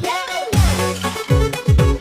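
Electronic dance music with a driving beat and falling bass sweeps.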